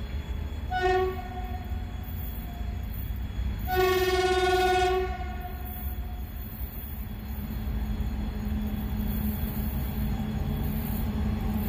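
An approaching locomotive sounds its horn twice: a short toot about a second in, then a longer blast of about a second and a half near four seconds in. A low rumble from the train runs underneath and grows a little louder as it nears.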